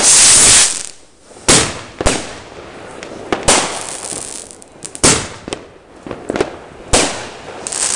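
WECO Gladiator bombette fireworks battery firing: a loud bang at the start, then about eight more shots and bursts at roughly one a second.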